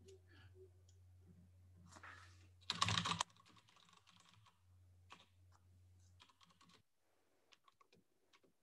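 Typing on a computer keyboard: scattered faint key clicks, with a brief louder rustling burst about three seconds in, over a low hum that stops about two-thirds of the way through.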